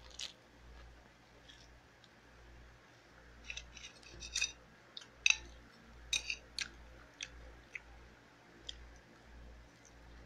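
A person chewing food close to the microphone, with a run of short, sharp wet clicks about three to seven seconds in, over a low steady hum.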